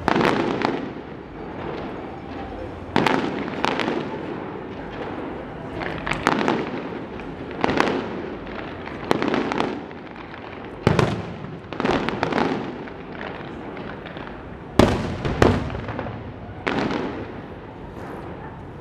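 Aerial fireworks shells bursting overhead in an irregular series of about a dozen bangs, each trailing off in a rumble. The loudest are two bangs close together about fifteen seconds in.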